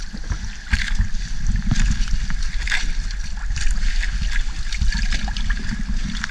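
A gill net being hauled in by hand over the side of a wooden outrigger boat: irregular splashes and drips of water coming off the net, over a steady low rumble.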